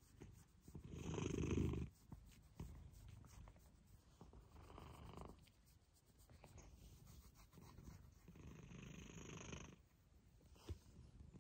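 Domestic cat purring close to the microphone, in three swells that come and go with its breathing, the loudest about a second in.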